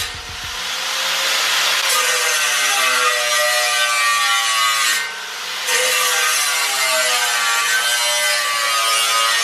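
Angle grinder grinding metal, its whine wavering as the load changes. It eases off briefly just after the start and again about five seconds in.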